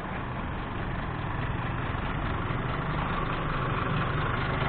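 Car engine running steadily at low revs, a low hum with road noise that grows a little louder.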